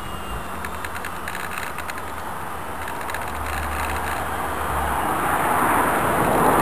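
T-28 model airplane's motor and propeller droning in flight, growing steadily louder as the plane comes lower and closer.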